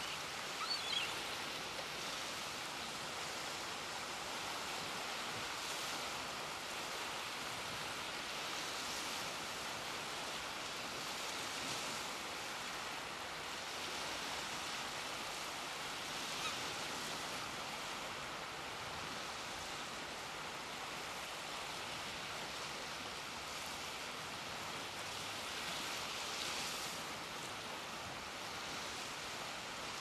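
Small waves washing at the shore, a steady hiss that swells gently every few seconds, with a short high bird call about a second in.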